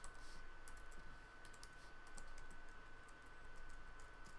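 Computer keyboard keys clicking irregularly as code is typed, faint, over a faint steady high-pitched tone.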